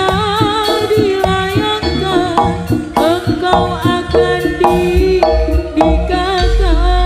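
Javanese jaranan ensemble music played loud through a PA: quick hand-drum strokes under a wavering melody line, with deep low booms coming in near the end.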